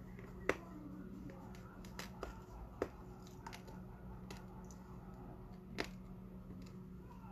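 Scattered small clicks and ticks, three of them sharper, over a faint steady hum.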